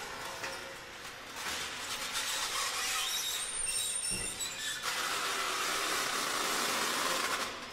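Experimental percussion: metal being scraped and rubbed, giving a noisy hiss with thin high squealing tones. It grows denser and a little louder about five seconds in.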